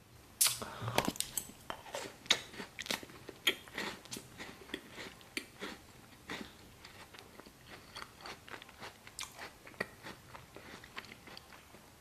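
Close-miked crunchy biting and chewing of a Twix bar: a sharp bite about half a second in, then a quick run of crisp, wet chews that gradually grow softer.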